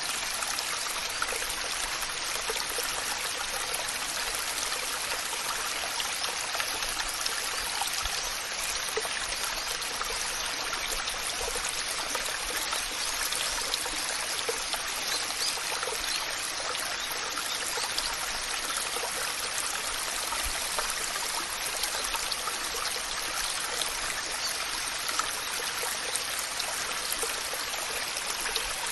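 Waterfall: water falling and splashing in a steady, even rush, bright and hissy with little deep rumble.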